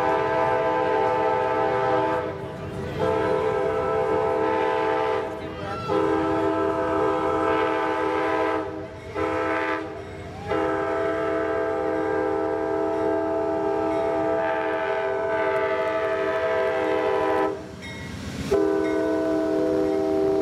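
Amtrak GE P42DC locomotive's multi-chime air horn blowing a chord in a series of long blasts with short breaks between them as the train approaches and passes. A low rumble of the train runs underneath.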